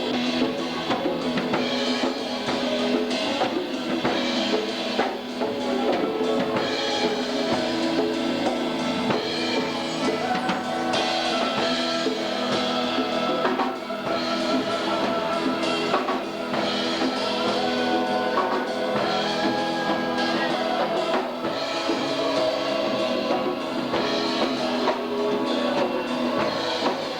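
Live band music with a full drum kit playing a steady beat of bass drum and snare under pitched instruments.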